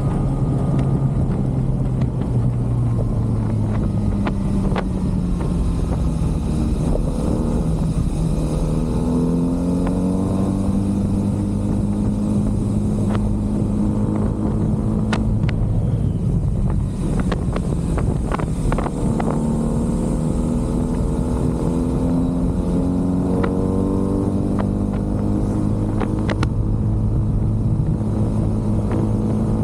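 Stock 2023 Kawasaki ZX-6R inline-four engine running under way, its pitch falling and climbing as the throttle is rolled off and opened again, with wind rush over the microphone and a few short sharp ticks near the middle.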